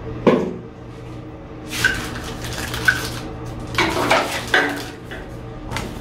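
Hands handling a hair dryer's plastic nozzle attachments and packaging: a knock just after the start, then several short bursts of plastic clatter and crinkling of bag and paper, over a low steady hum.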